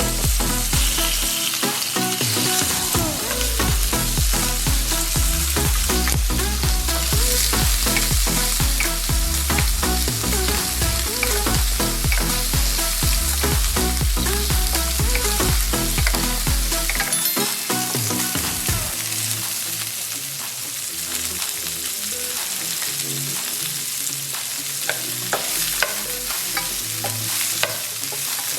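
Pork ribs sizzling as they fry in oil in a pan, stirred with a utensil that clicks and scrapes against the pan over and over.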